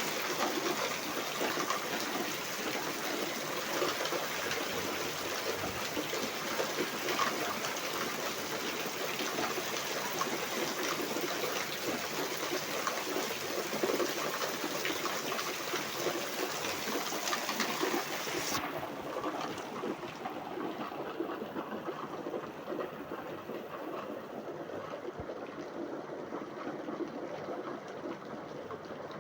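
Steady rain, a dense, even patter. About two-thirds of the way through it turns duller and slightly softer as the hiss at the top drops away.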